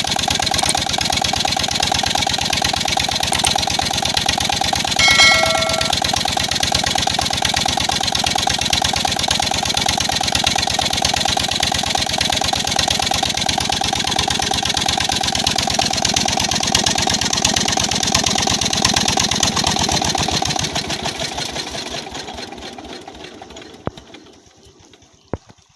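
Freshly repaired single-cylinder Peter-type diesel engine running with a steady, even beat, running well; a short whistle-like tone sounds about five seconds in. Near the end the engine is shut down, slowing and coasting to a stop.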